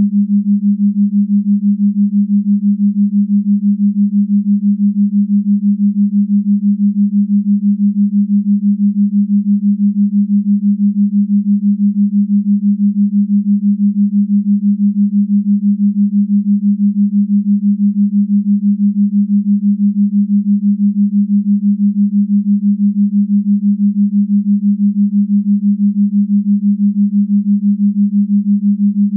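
A single low electronic drone tone held steady throughout, throbbing in loudness at a fast, even rate.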